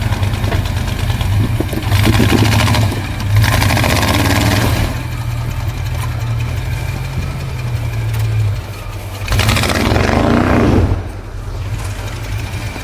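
Lifted pickup truck's engine running under load as it crawls over rocks, with a steady low drone and two louder surges of revving, one about two seconds in and another near ten seconds.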